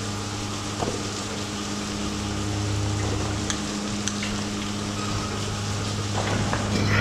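Milking-shed equipment running: a steady low hum under an even hiss of water spraying, with two light clicks about halfway through.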